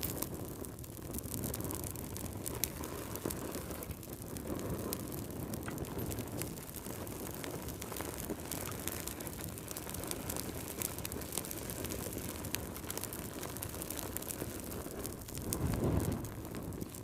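Wood fire burning, a steady low rumble of flames with frequent sharp crackles and pops throughout; the flames swell louder briefly near the end.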